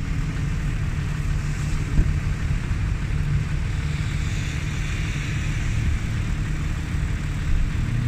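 Off-road 4x4's engine running steadily under load as it drives through shallow flood water, with a steady wash of noise over it.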